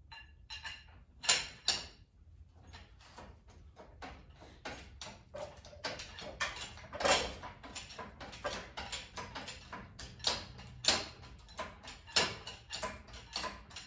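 Hand-pumped hydraulic engine hoist being jacked up to lift a C4 automatic transmission on its chain: a quick run of clicks and knocks, about three or four a second, with a few louder knocks among them.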